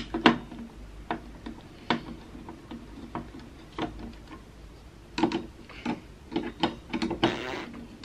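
Screwdriver tightening the mounting screws of a Ryzen 5 stock CPU cooler onto a motherboard: irregular small clicks and ticks of the tool in the screw heads and against the cooler, coming thicker and faster in short clusters near the end, with a brief scrape.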